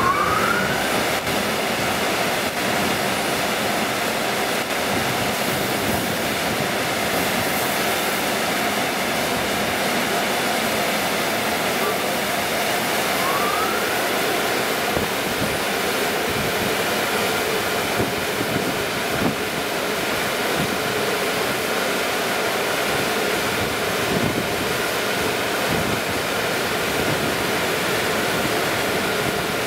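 N/S car wash machinery running: a steady rush of water spray and spinning brushes, then the big dryer blowers blasting air. A motor whine rises in pitch right at the start.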